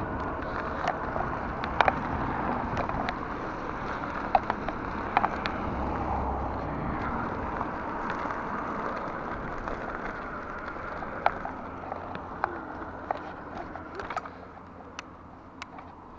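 Bicycle tyres rolling over loose gravel: a steady crunching hiss with scattered sharp ticks of stones, getting quieter near the end.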